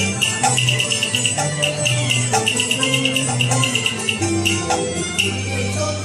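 Cantonese opera accompaniment band playing an instrumental passage between sung lines: a fast, even high ticking pattern over a low melody that moves in held, stepping notes.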